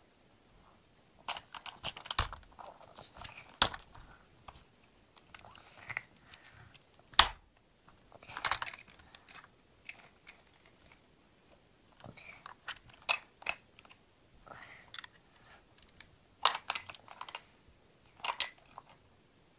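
A plastic bag crinkling and rustling in irregular bursts as a small child handles it and reaches into it.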